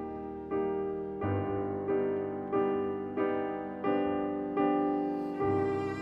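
Slow piano music: a note or chord struck about every two-thirds of a second and left to fade before the next.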